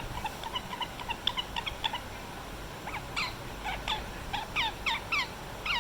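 Pet ringneck parakeet chirping: a run of soft, quick chirps, then from about three seconds in a series of louder calls that fall in pitch, following one another rapidly.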